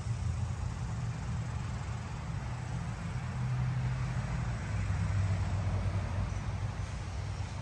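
Steady low motor rumble with a hum that shifts in pitch a few seconds in, over a faint hiss.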